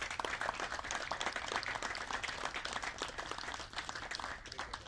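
Small audience applauding, a dense patter of many hands clapping that thins out near the end.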